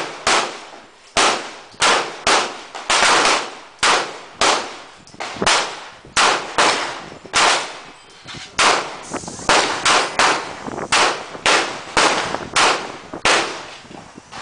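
Handgun shots at a shooting range, about two a second at uneven spacing. They come from a small semi-automatic pistol and other shooters along the firing line, and each bang trails off in a brief echo.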